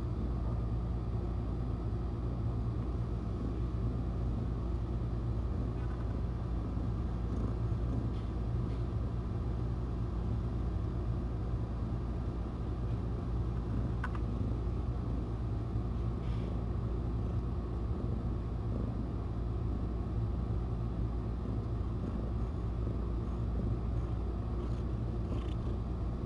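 Mother cat purring steadily while nursing her kittens, close to the microphone: a continuous low rumble.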